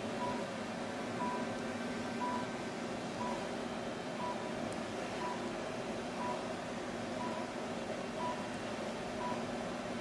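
Therapeutic laser unit beeping once a second while it emits, a short beep of one pitch, over a steady low hum.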